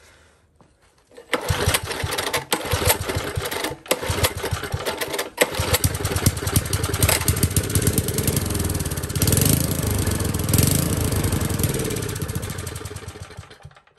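Old Tecumseh four-stroke single-cylinder engine pull-started on its recoil starter, catching in a few short bursts, then running unevenly with its speed rising and falling before it slows and dies away near the end. Its carburettor main jet has just been opened to let more fuel past a suspected blockage.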